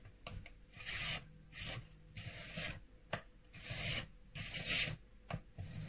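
Silicone spatula scraping and stirring thick brownie batter in a mixing bowl: a series of irregular scraping strokes, about one or two a second.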